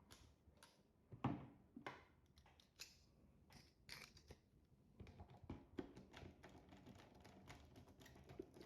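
Faint, scattered clicks and snips of electrical wire being handled and cut or stripped for the neutral connection to the contactor coil.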